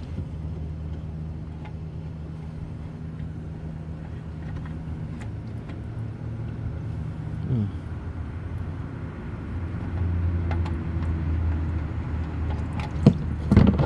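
A vehicle engine running at a steady idle, a low even hum that swells slightly about ten seconds in, with a few sharp clicks near the end.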